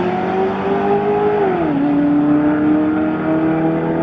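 Car engine running at steady, fairly high revs: the pitch creeps up, drops sharply about a second and a half in as the revs fall, then holds and slowly climbs again.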